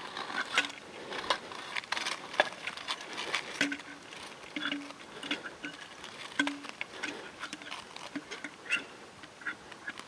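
Handling noise: scattered small clicks, taps and rustles as a gloved hand works a small wooden sign on a tree trunk, with a few short low squeaks in the middle.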